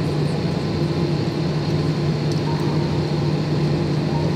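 Steady cabin noise of an Airbus A320 taxiing after landing, with the jet engines at idle: an even hum over a low drone that does not change.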